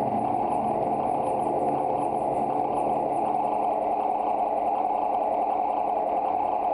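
Live ambient drone music from electric guitar and electronics: a steady, dense drone centred in the midrange, with a thin, fast-pulsing high whine on top that settles into a flatter flutter about three seconds in.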